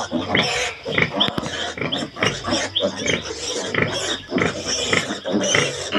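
A litter of young piglets squealing and grunting over and over while they jostle for the sow's teats during nursing: many short, high calls a few times a second, with no pause.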